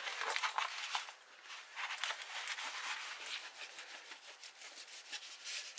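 Diamond painting canvas being rolled back the opposite way by hand to flatten it: irregular rustling and rubbing of the stiff, glue-coated canvas.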